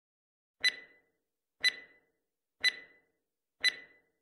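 Countdown-timer sound effect: four short, identical beeps one second apart, counting down to zero.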